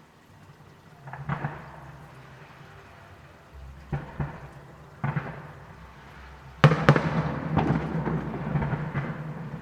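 Fireworks bursting: a few bangs about a second in and again around four and five seconds in, then the loudest bang near seven seconds, followed by a rapid run of smaller crackling bangs over a low rumble.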